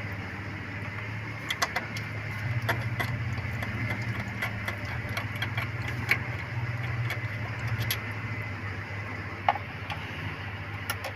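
Scattered sharp metallic clicks and clinks of hand tools and parts being handled while the throttle body is unbolted, over a steady low hum.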